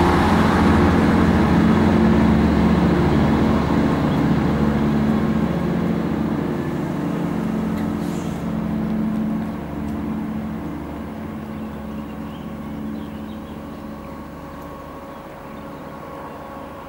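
Diesel engines of a MAN 2000 diesel-hydraulic multiple unit running as the train draws away, a low engine hum that fades steadily.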